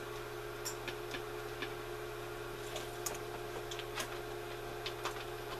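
Quiet room tone: a steady low electrical hum with scattered faint clicks and ticks.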